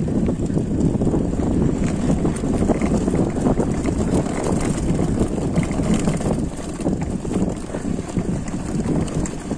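Wind buffeting the microphone over the steady rumble of mountain bike tyres rolling on a sandy dirt track, with frequent small rattles and clicks from the bike.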